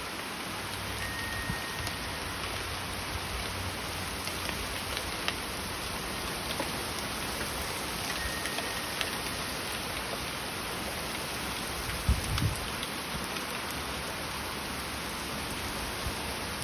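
Heavy rain falling steadily, an even dense hiss. A couple of brief low thumps come about three-quarters of the way through.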